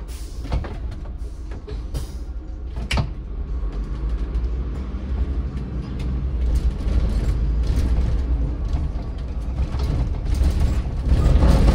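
City bus running, heard from on board: a steady low engine rumble that grows louder about halfway through and again near the end, with a few sharp clicks and knocks in the first three seconds.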